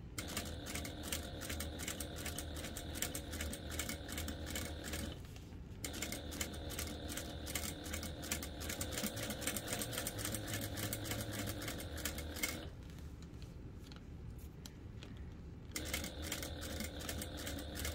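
Industrial sewing machine stitching through vinyl wrapped over plastic tubing: a fast, even ticking of the needle and feed over a low hum. It stops briefly about five seconds in and again for about three seconds a few seconds before the end.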